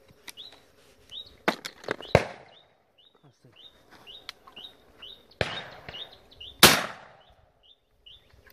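Shotgun shots at flying doves: two in quick succession about a second and a half in, and two more in the second half, the last the loudest. Between the shots a bird chirps over and over in short high calls.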